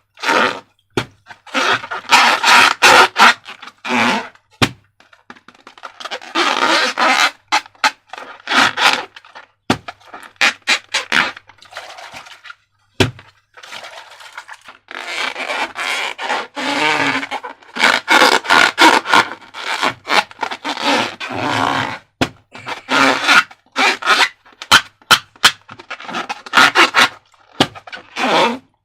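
Slime being worked by hand: irregular sticky squishing and scraping bursts broken by many sharp clicks and crackles.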